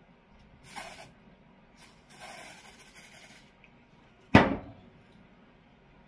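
Aerosol can of Batiste dry shampoo sprayed onto a wig's roots in two hissing bursts, a short one and then a longer one of about a second and a half. A single loud knock follows about four seconds in.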